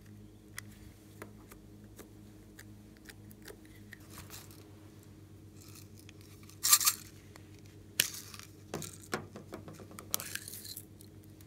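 Small plastic toys and cases handled by hand: light scattered clicks and taps, then a few short, louder scraping, rustling bursts, the loudest about seven seconds in and more near the end as a small plastic case is opened. A faint steady hum runs underneath.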